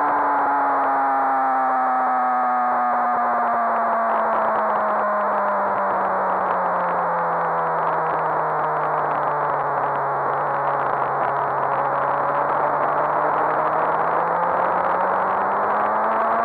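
Suzuki GSX-R1000 K7's inline-four engine on track, its revs falling slowly for about ten seconds and then climbing again near the end, under heavy wind noise on the onboard camera.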